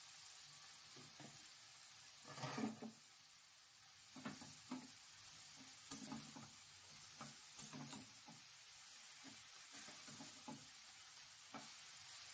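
Shredded cabbage frying in hot oil in a metal kadai with a faint steady sizzle, while a wooden spatula stirs it, giving irregular soft scrapes and knocks against the pan; the loudest comes about two and a half seconds in.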